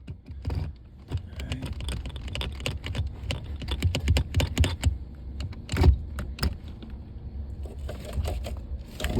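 Rapid, irregular clicking and clattering of metal tools being handled, with one louder knock about six seconds in.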